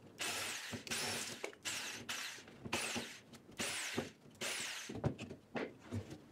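Jigsaw cutting plywood in about eight short bursts, the motor speeding up and dropping off with each squeeze of the trigger, followed by a few knocks near the end.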